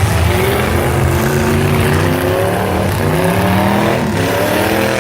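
Several demolition derby cars' engines revving hard at once, their pitch rising and falling as the drivers throttle up and back off, with a sharp knock about three seconds in and another about a second later.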